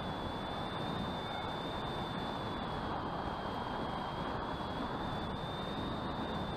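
Onboard sound of an electric RC plane in flight: a steady high whine from its brushless motor and propeller over a constant rush of wind on the microphone.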